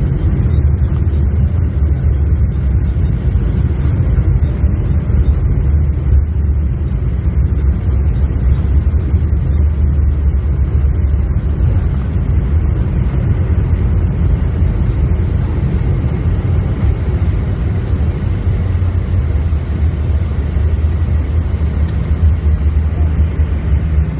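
Steady low rumble of cabin noise inside a Boeing 747-8 airliner: engine and airflow noise, unbroken and even.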